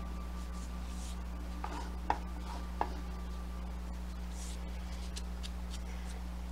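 Chef's knife scraping and tapping on a plastic cutting board and small bowl as sliced scallions are pushed into the bowl, with a few short sharp taps about two to three seconds in, over a steady low hum.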